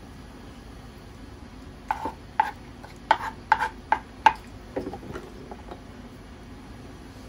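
A wooden spoon knocking and scraping against a small pan while someone scoops up food: about eight sharp clacks in quick succession, then a few softer scrapes.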